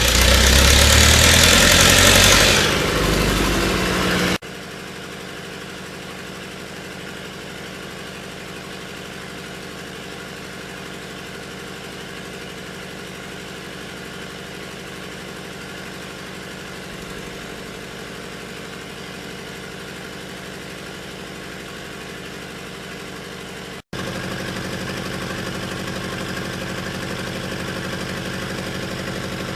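Lister PK diesel generator engine starting up and running loudly, then running steadily. About four seconds in, the sound drops suddenly to a quieter, even hum. Near the end it breaks off for a moment and picks up again, slightly louder.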